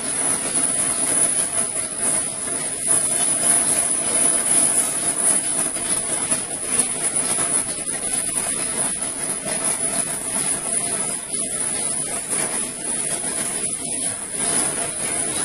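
BOPP/OPP film folding machine running: a steady mechanical drone with a constant high-pitched whine over it.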